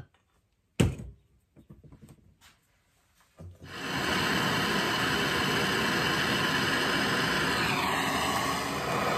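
Handheld gas torch flame hissing steadily while heating a copper pipe joint for sweating with solder. It comes in nearly four seconds in, after a near-silent stretch broken by one sharp click about a second in.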